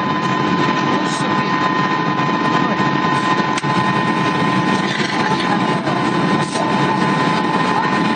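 Airliner cabin noise in flight: a steady rush of engine and air noise with a thin, steady whine running through it.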